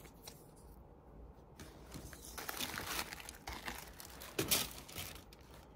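Packaging being handled: rustling and crinkling that starts about two seconds in, with several sharper crackles, as the shoes are unwrapped.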